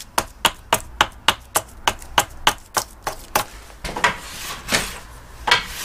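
Hatchet chopping into a split yew stave on a wooden chopping block, fast and even at about three and a half blows a second, roughing out the longbow's shape. Just over three seconds in, the chopping stops. It gives way to a few longer rasping strokes of a hand plane shaving the stave, about one every 0.7 seconds.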